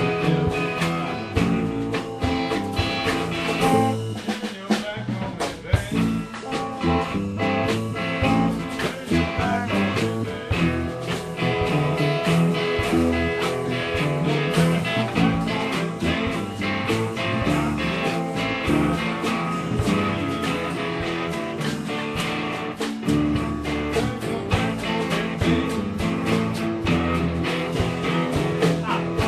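Blues-rock music with guitar, playing steadily.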